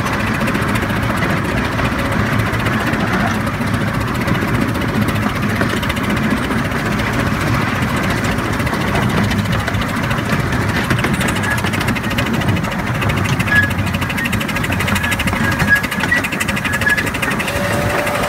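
Miniature ride-on steam train running along its track: a steady rumble and clatter of the engine and wheels.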